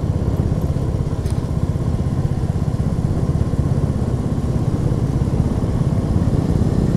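Motorcycle engine running steadily at low revs, a fast, even low pulsing that neither rises nor falls.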